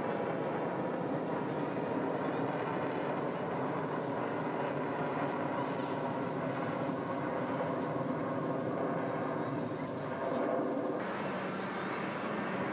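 Airplane engine running steadily overhead, a dense stack of even pitched tones that holds level, then changes abruptly about eleven seconds in.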